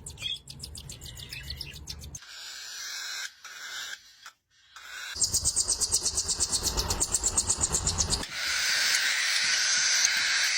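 Young parrot calling in rapid, evenly repeated chirping pulses, about six or seven a second, in stretches that stop and start abruptly; for the last couple of seconds a steady harsh hiss.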